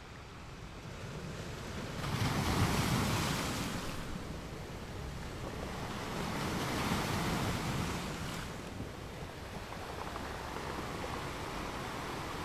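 Added ambient rushing noise, a wind-and-surf-like sound bed, that fades in and then swells in two long surges, about two and seven seconds in.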